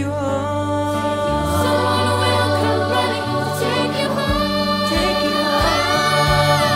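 Music: a children's choir singing held notes over steady instrumental backing in a slow pop ballad.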